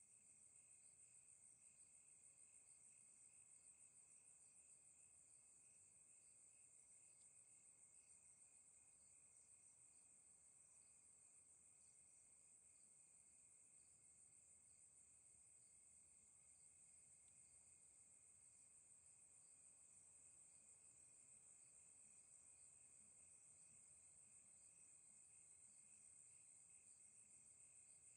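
Very faint chorus of crickets chirping steadily, a thin high trilling that never lets up.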